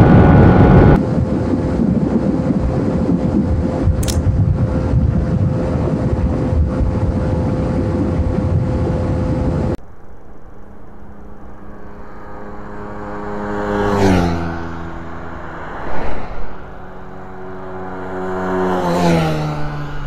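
Heavy wind rush and the steady high-rpm note of a Suzuki GSX-R150's single-cylinder engine running near top speed, with the rush easing slightly about a second in. It cuts off abruptly near the halfway mark. Then two vehicles pass a roadside microphone about five seconds apart, each engine note swelling and dropping in pitch as it goes by, with a brief loud thump between them.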